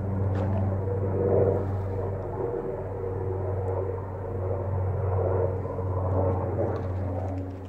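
A steady low engine-like drone with a constant pitch, swelling slightly louder about a second and a half in and again around six seconds in.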